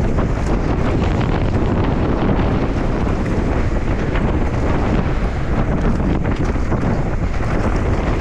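Steady wind noise on a helmet-camera microphone as a mountain bike runs down a dirt trail at speed. The tyres rumble over dirt and small stones underneath, with a constant crackle of small knocks and rattles from the bike.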